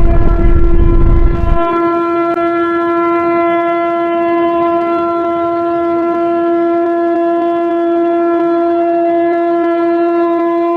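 A deep earthquake rumble sound effect stops abruptly about a second and a half in, leaving a steady electronic alert tone with many overtones, held at one pitch.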